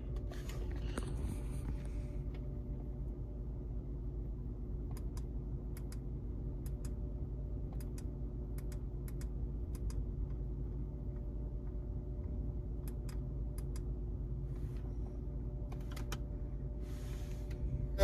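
Irregular sharp clicks from the center console joystick knob of a 2013 Hyundai Equus as it is pushed and turned through the screen menus. The knob runs on a new Grayhill optical rotary joystick encoder with pushbutton, its clicks now registering properly. The clicks sound over a steady low hum in the car's cabin.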